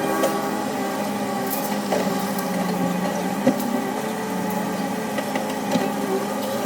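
Caterpillar 320C hydraulic excavator's diesel engine running at a steady pitch while working, with a few knocks, the sharpest about halfway through.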